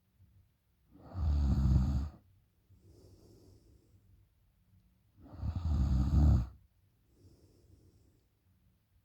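A woman snoring through an open mouth in deep sleep: two loud snores about four seconds apart, each followed by a much softer breath.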